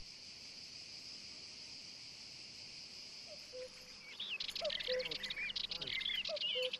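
Steady high-pitched insect drone. About four seconds in it gives way to small birds chirping and twittering, while a short low note repeats three times, about every second and a half.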